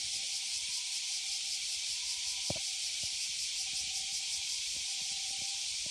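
Cicadas buzzing in a steady, dense chorus, heard as an even high hiss.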